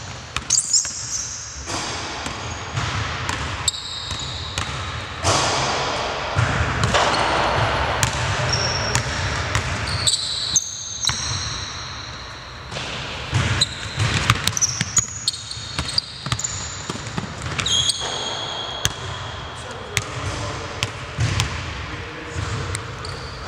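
Basketball bouncing on a hardwood gym floor in a large gym hall, in irregular thuds, mixed with short high squeaks of sneakers on the court.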